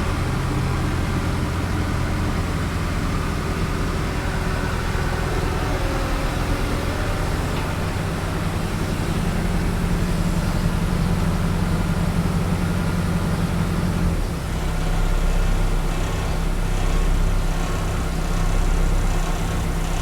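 A heavy engine running steadily with a low, even drone. It changes pitch about fourteen seconds in, then rises and falls in loudness a few times.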